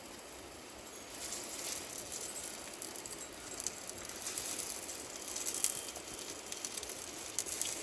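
Light, irregular clicking and rattling over a steady hiss.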